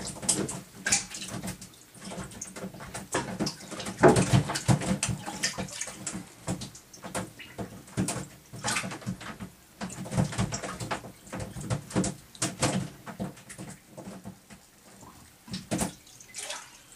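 Seawater splashing and sloshing in irregular short bursts around a small fishing boat.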